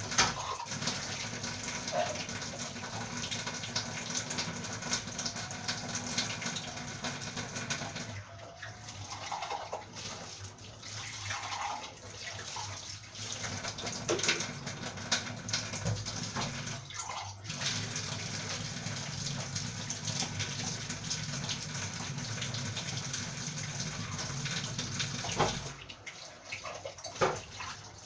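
Water running from a kitchen tap, a steady rush with a few short breaks and light clinks of items being washed.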